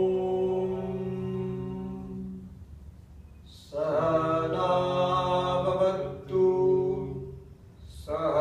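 Male chanting of a yoga invocation mantra: a long held note that fades out about two and a half seconds in, a short pause for breath, then the chant resumes with changing pitch and pauses for breath again near the end.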